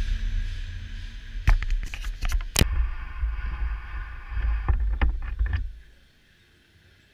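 Passenger trains moving along a station platform: a heavy low rumble with a hiss, broken twice by runs of sharp clacks of wheels over rail joints, the first about a second and a half in and the second near five seconds in. About two-thirds of the way through the rumble drops away abruptly.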